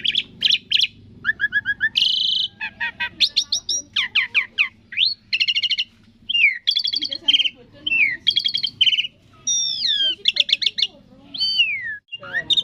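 Asian pied starling singing a fast, varied song of whistles, rapid chattering trills and falling slurred notes, broken by short pauses.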